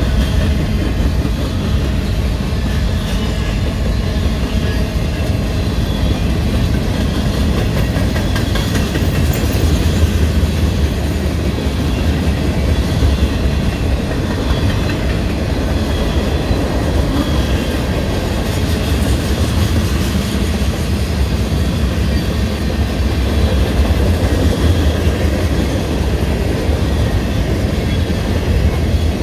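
Freight train cars rolling past close by: a steady rumble of steel wheels on the rails, with the clicking of wheels over rail joints.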